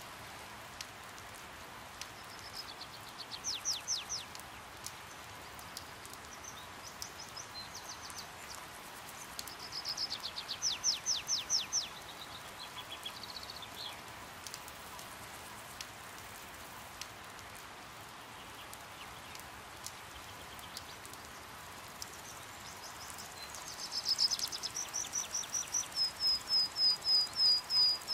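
Steady rain with scattered ticks of falling drops. A bird sings three trills of rapid high notes over it: near the start, about a third of the way in, and the loudest over the last few seconds.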